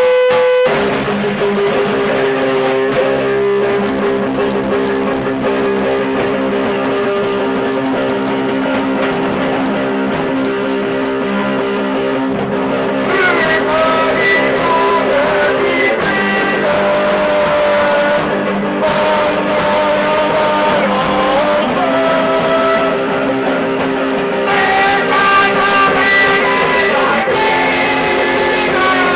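Live instrumental music from a small band: long held chords, with a higher melody line coming in about 13 seconds in and again near the end.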